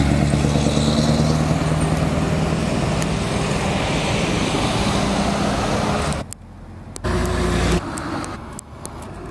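A vehicle engine running steadily and slowly fading as the vehicle drives away. About six seconds in it drops out, and the microphone picks up a brief low rumble of handling noise and a run of sharp clicks and knocks as the camera is moved about.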